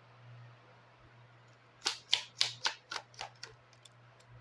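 Lenormand cards being handled on a table: a quick run of about eight sharp clicks and taps, starting about two seconds in, over a faint steady low hum.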